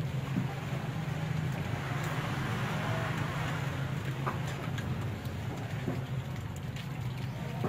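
Puppies eating together from a plastic bowl, with small scattered clicks and scraping of mouths and paws at the bowl, over a steady low hum.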